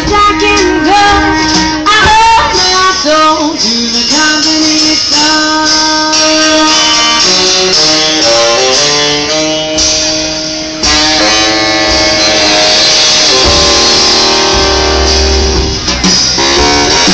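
Live swing band playing an instrumental passage, saxophones carrying the melody over upright bass and drums; the band gets louder about eleven seconds in.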